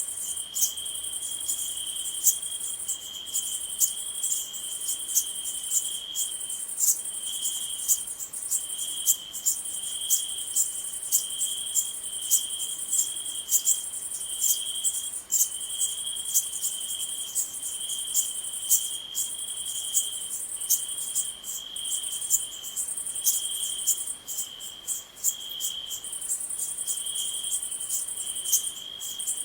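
Night insect ambience: a cricket trilling in short bursts repeated about once a second, over a continuous high insect buzz with scattered ticks.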